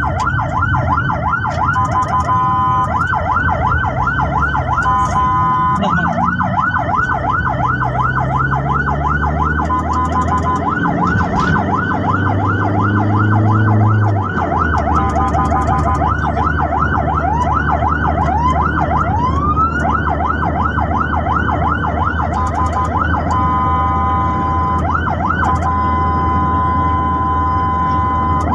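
Electronic emergency siren sounding continuously in fast sweeping yelps, about four a second, switching at times to a steady tone, with one slower rising wail near the twentieth second. Vehicle engine and road noise run underneath.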